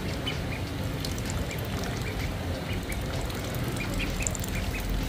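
Ducklings peeping in short, repeated high peeps, a few a second, while they feed, with faint clicking of their bills in the bowl and spoon.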